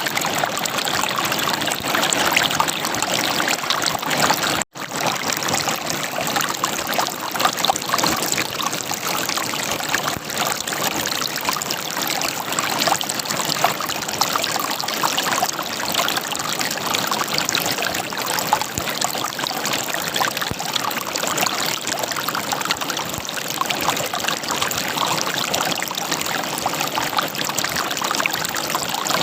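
River water gurgling steadily as it runs over rocks, with a split-second dropout to silence about five seconds in.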